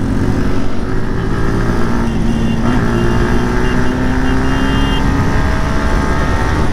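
Motorcycle engine running under way, heard from the rider's own sport bike, its note rising slowly as it pulls, with a brief change in the engine note about two and a half seconds in, over steady riding noise.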